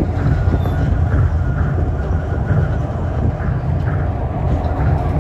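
Steady low rumble of a rubber-tyred Tokyo Monorail car running at speed, heard from inside the car.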